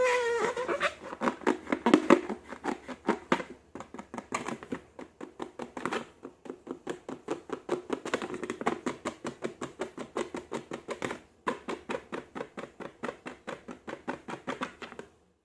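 Slime being squeezed and worked by hand, giving a fast, even run of wet clicks and squelches that stops suddenly near the end.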